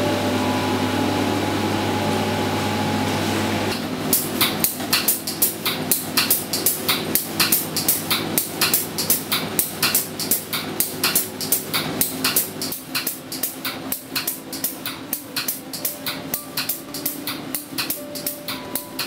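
Background music: held chords, then from about four seconds in a fast, even clicking percussion beat over soft held notes.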